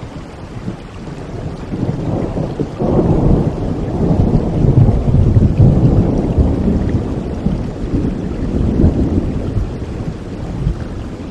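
Rolling thunder over steady rain: a deep rumble builds about three seconds in, peaks midway and slowly dies away while the rain hiss goes on underneath.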